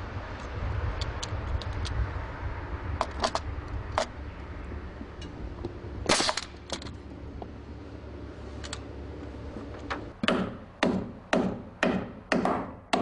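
Pneumatic framing nailer firing nails into lumber: scattered sharp shots through the first several seconds, the loudest about six seconds in, then a quick even run of shots about two a second near the end. A low steady rumble lies beneath.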